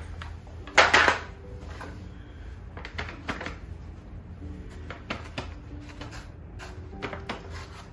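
Disposable aluminium foil pie pans clattering and crinkling as they are handled and set down on a counter, the loudest clatter about a second in, followed by a few lighter knocks.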